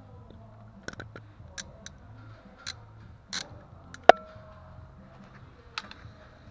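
Irregular metallic clicks and clinks of a ratchet with a deep socket on an extension working at the bolts of a caravan's corner steady leg, with one sharp metal clank about four seconds in that rings briefly.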